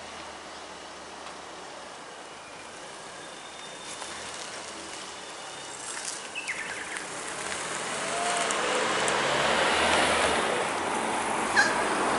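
A car driving past on the road, its tyre and engine noise swelling as it approaches and loudest near the end.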